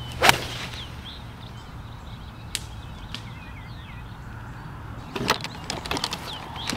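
A golf iron striking the ball on a full swing: one sharp crack about a third of a second in, the loudest sound here. Birds chirp in the background, and a few small clicks and rustles come near the end.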